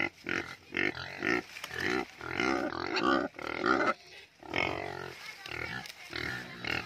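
Several pigs grunting in quick short calls, one after another with a brief lull about four seconds in: hungry pigs clamouring for feed.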